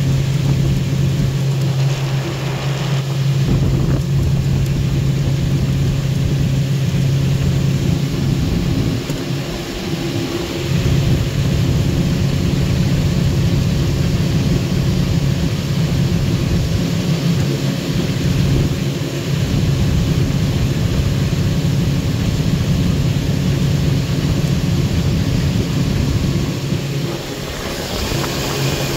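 Outboard motor running steadily at cruising speed with the boat on the plane, over the rush of water and wind rumbling on the microphone. The steady hum briefly fades about nine seconds in.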